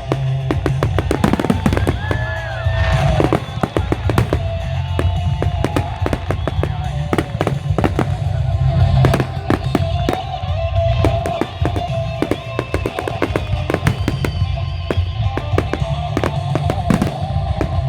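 Fireworks crackling and popping in rapid, uneven clusters, mixed with music that has a steady, heavy low end.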